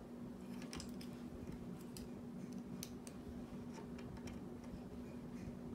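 Scattered light clicks and taps as a screw and cordless drill are handled against the end of a wooden bed slat, with no drill motor running, over a steady low hum.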